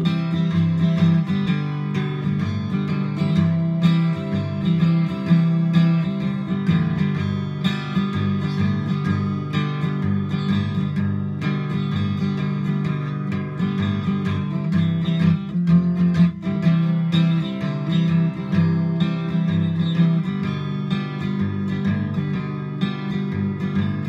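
Acoustic guitar strummed steadily through an instrumental break, with no singing.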